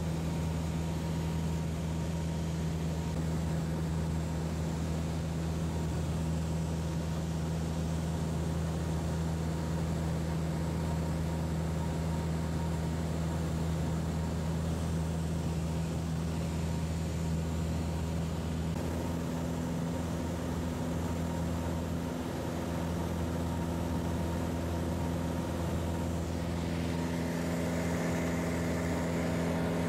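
Piper PA-28's piston engine and propeller droning steadily in cruise, heard inside the cabin. The pitch holds even, with a slight shift in the note about two-thirds through and again near the end.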